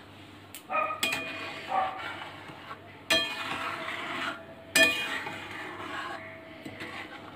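Spatula stirring and scraping milk in an aluminium pan, with three sharp knocks against the pan that ring briefly, about one, three and five seconds in.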